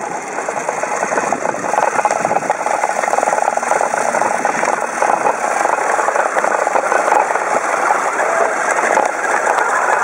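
Radio-controlled pulling tractor running under heavy load as it drags the weighted sled: a steady, loud rasping whir of motor and gearing, building over the first couple of seconds and then holding.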